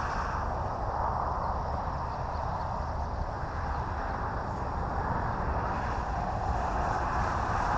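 Electric RC model plane's motor and propeller droning in flight, a steady whir that swells and eases a little as the plane flies its manoeuvre.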